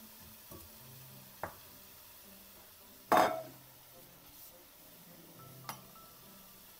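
Handling sounds at a stainless steel cooking pot: a couple of soft knocks, then one loud metallic knock with a short ring about three seconds in, and a lighter ringing clink near the end.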